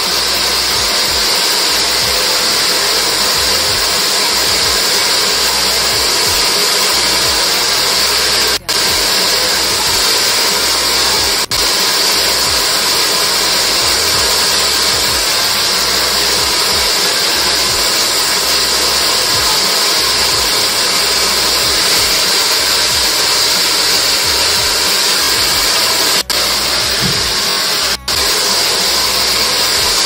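V&G hair dryer with its concentrator nozzle fitted, running steadily with a loud airy hiss, broken by four momentary dips.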